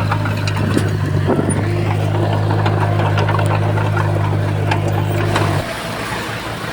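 Heavy diesel engines of earthmoving machinery running, with scattered clanks and ticks. A low, steady drone stops abruptly about five and a half seconds in, leaving a quieter, rougher engine noise.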